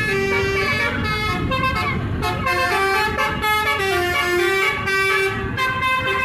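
Bus telolet horn: a bus's multi-tone musical air horn playing a quick tune of stepped notes, over the low rumble of the bus engine and traffic.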